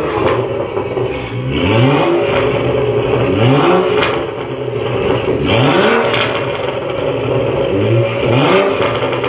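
BMW F13 M6's twin-turbo V8 revving through an Armytrix valve-controlled exhaust while stationary: about five quick throttle blips, each rising in pitch and dropping back to idle. Two sharp cracks come between the blips.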